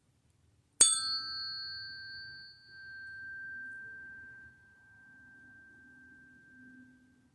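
A single strike on a small struck metal chime, ringing with one clear high tone that slowly fades and wavers over about six seconds.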